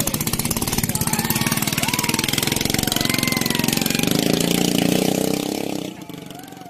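Small engine of a ketinting longtail racing boat running hard at high revs, a rapid stream of firing pulses with the pitch shifting up and down; it fades away near the end.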